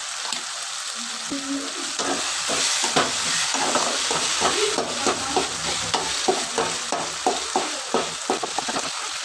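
Perforated steel skimmer ladle scraping and stirring chopped tomatoes and onions frying in oil in a metal kadai, over a steady sizzle. The stirring strokes start about two seconds in and come quickly and evenly, a little over two a second.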